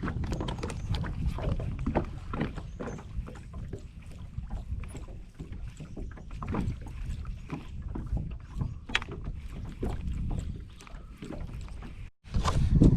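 Small fishing boat on open water: a low wind rumble on the microphone with scattered light knocks and clicks against the boat. The sound drops out briefly near the end.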